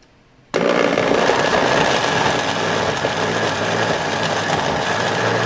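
Old electric blender with a plastic jar switching on about half a second in and running steadily at full speed, puréeing cooked chilies, tomatoes and onions with a little water into sambal.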